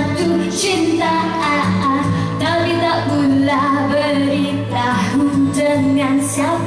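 A woman singing a pop song live into a handheld microphone, over musical accompaniment through the PA.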